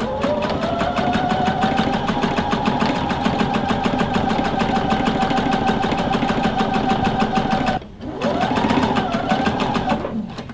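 Electric sewing machine stitching through heavy fabric: the motor whine rises as it gets up to speed, then runs steady with a rapid, even needle beat. It stops briefly about eight seconds in, runs again for about two seconds with the pitch rising and falling, and stops.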